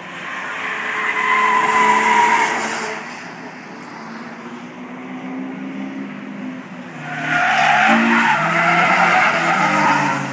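Two cars driven hard through a race-track curve pass one after the other, the first about two seconds in and the second, louder and longer, from about seven seconds in. Engine notes and a high squeal of tyres cornering.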